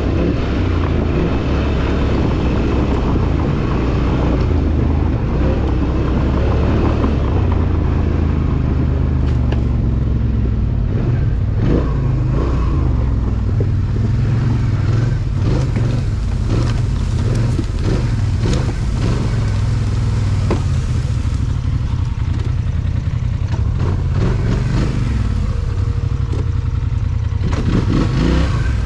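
Off-road vehicle engine running steadily while riding a trail, with frequent clatters and knocks from the machine over rough ground, thickest through the middle.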